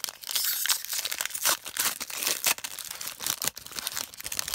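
Foil wrapper of a Panini Prizm trading-card pack being torn open and crinkled by hand: a dense, crackling rustle with many sharp snaps.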